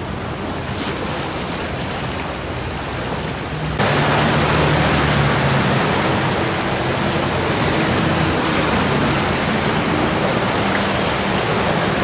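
A river in major flood, its brown water rushing in a steady roar. The sound jumps suddenly louder and fuller about four seconds in, where the fast current is heard from just above it.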